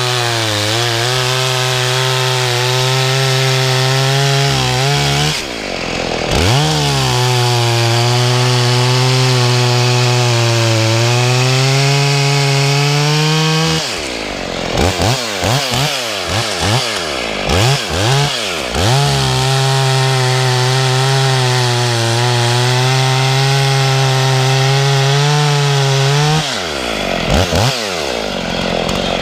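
Husqvarna 55 two-stroke chainsaw held at full throttle for long stretches, its pitch sagging a little as under cutting load. Twice it drops off and is blipped in a string of quick short revs before going back to full throttle.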